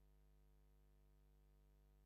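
Near silence: a silent film track carrying only a faint steady hum.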